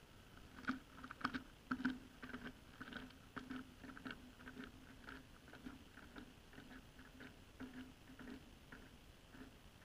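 Small ice-fishing reel being cranked while a fish is played on a bent rod: a run of soft, irregular clicks, several a second, loudest in the first couple of seconds and thinning out near the end.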